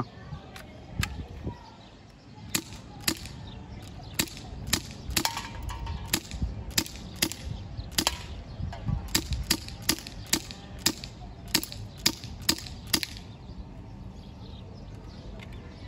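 An airsoft pistol firing a long string of sharp shots, about two a second at an uneven pace, stopping about thirteen seconds in.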